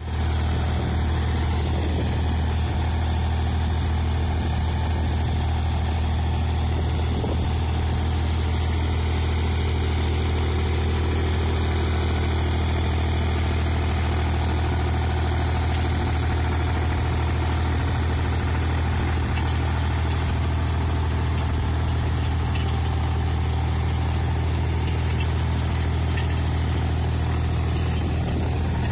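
Fendt GT 231 tool carrier's engine running steadily under load at an even pitch while it drives a potato spinner digger, with a steady hiss above it.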